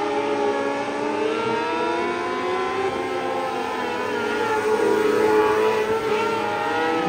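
Several winged sprint cars racing on a dirt oval, their engines revving up and easing off through the turns, several pitches rising and falling over one another.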